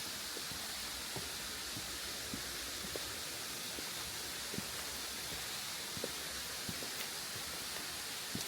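Waterfall: a steady rush of falling water, an even hiss with small scattered pops.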